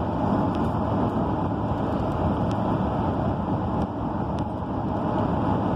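Steady engine and road noise heard inside a truck's cab while driving.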